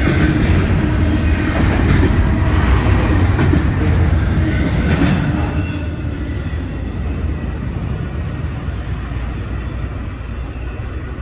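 Double-stack intermodal freight train's cars rumbling and clacking over the rails close by. About five seconds in, the last car passes and the sound drops to a fainter rumble that fades as the train moves away.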